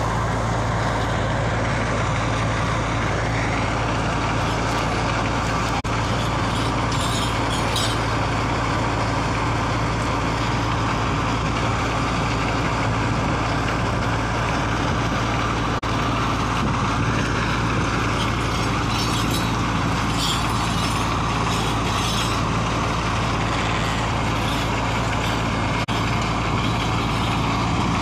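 A steady, unbroken low drone of a running engine, with an even rushing noise over it.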